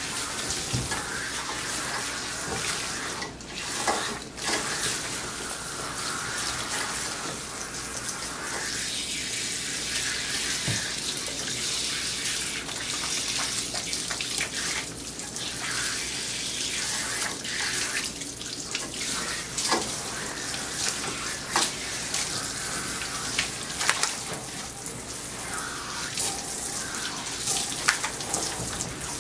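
Water running from a hand-held bath sprayer and splashing over a soapy dog and into a grooming tub, a steady hiss with a few brief knocks.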